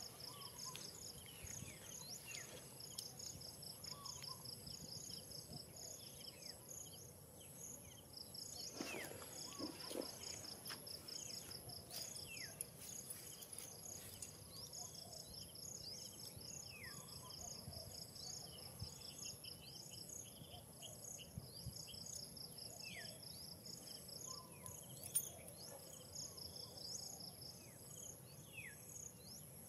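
Insects chirping in rapid pulsing trains over a steady high-pitched whine, with short falling chirps now and then. A louder falling call sounds about nine seconds in, and a single sharp click about 25 seconds in.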